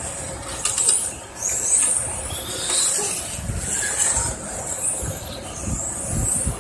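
Electric 1:10 touring cars' brushless motors whining as they race, the high-pitched whine rising and falling again and again as the cars speed up and slow down, over a low rumble.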